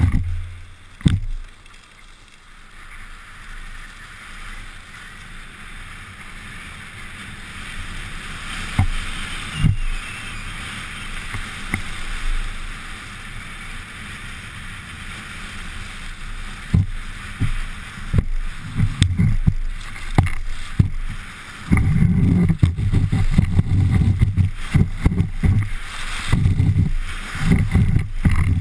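Fischer skis scraping and hissing steadily over hard, packed snow on a downhill run, with a few sharp knocks. In the last third, gusts of wind rumble on the helmet camera's microphone.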